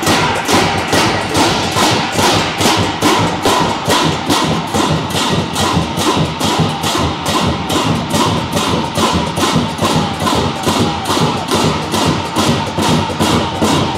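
Chinese gong-and-drum troupe playing: a large red barrel drum struck hard with sticks in a fast, steady beat of about three strokes a second, with hand cymbals clashing on the beats and a ringing metallic wash between them.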